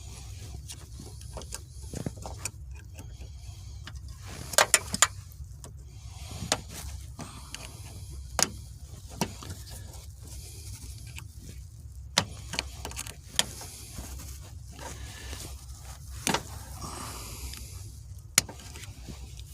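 Scattered sharp clicks and knocks from hand tools and parts of a car's manual shifter assembly being worked on, with a quick cluster about five seconds in, over a steady low rumble.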